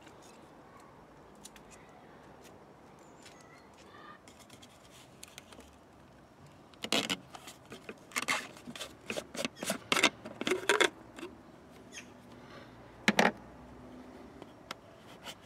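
Plastic brake fluid reservoir cap being unscrewed by hand: a run of short, sharp plastic clicks and scrapes as it turns, then a single click a couple of seconds later as it comes free.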